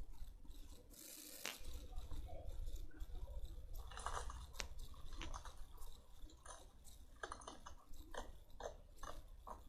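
Slime being squeezed and pressed by hand, giving irregular short crackles and pops.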